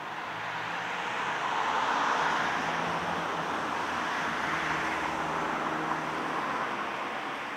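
Road traffic noise: a steady rush of a passing vehicle that swells over the first couple of seconds and then holds.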